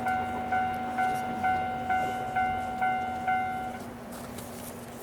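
Japanese railway level-crossing warning bell ringing, a pitched ding struck a little over twice a second, which stops about four seconds in as the crossing clears after the train has passed.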